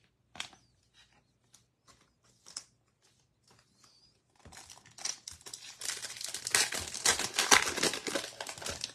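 Foil wrapper of a baseball card pack crinkling as it is handled and torn open, starting about halfway through and loudest near the end. A few faint light taps come before it.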